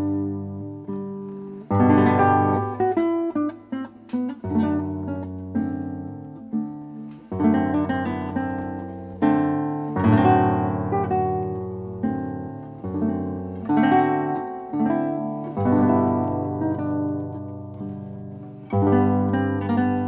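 A 1913 Hermann Hauser I classical guitar played solo with the fingers. Plucked chords and melody notes start sharply every second or two, ring on and fade.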